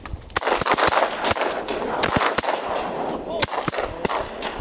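A rapid volley of shotgun blasts from several hunters firing together at incoming ducks: about a dozen overlapping shots, starting about half a second in and running to the end.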